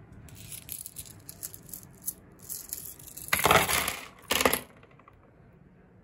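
Coins, screws, nuts and washers clattering onto a hard tabletop: scattered light clinks at first, then two louder clattering spills about three and a half and four and a half seconds in.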